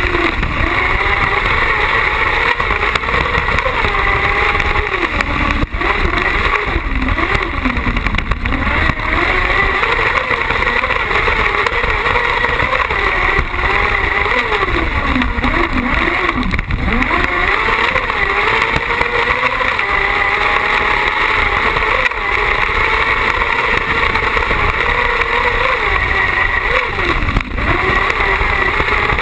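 Carcross buggy's motorcycle engine running hard at high revs, its pitch rising and falling over and over with throttle and gear changes, heard through an onboard camera.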